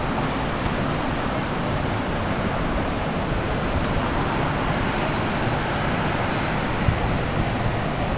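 Steady rushing outdoor noise: wind on the microphone mixed with the hum of road traffic.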